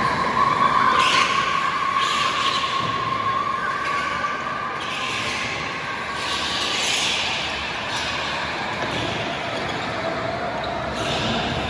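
Go-karts lapping an indoor track, their motors making a steady high-pitched whine that drifts in pitch, with a hiss swelling and fading every second or two as karts pass, echoing in the hall.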